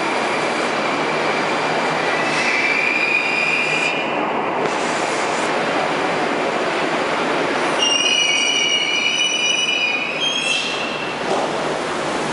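Moscow Metro 81-760/761 train running into the station and braking to a stop: a steady rush of wheels on rail with high-pitched squeals about two seconds in and again, louder, about eight seconds in.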